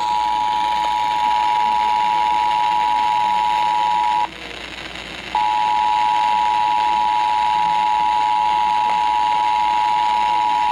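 Emergency Alert System two-tone attention signal (853 and 960 Hz sounded together), a steady loud tone that marks the start of an emergency alert, here for a required monthly test. It drops out for about a second some four seconds in, then resumes.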